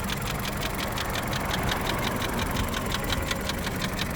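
Volkswagen Golf 6 1.4 CGGA four-cylinder petrol engine idling evenly, with a fast, regular ticking knock over the running note. The owner cannot yet say what is causing the knock.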